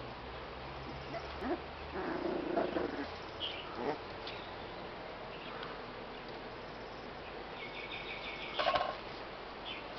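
A small puppy whimpering in a few short, high whines over a steady background hiss, the loudest near the end.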